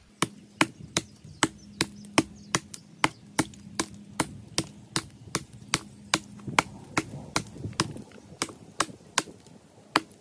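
Small tomahawk chopping into a thin standing tree trunk: a quick, steady run of sharp wooden chops, about two to three strikes a second.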